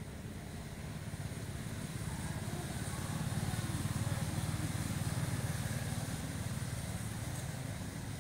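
A motor vehicle's engine rumble that swells to its loudest a few seconds in and then fades again as it passes by.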